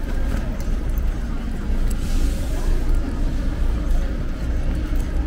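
City street traffic on a wet road: a steady low rumble of vehicles, with a passing car's tyre hiss swelling about two seconds in.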